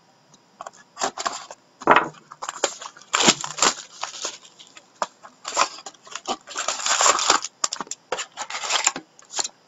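Plastic shrink wrap being torn and crinkled off a trading-card hobby box, then the cardboard box opened and the foil card packs pulled out, in irregular crackling and rustling bursts that start about a second in.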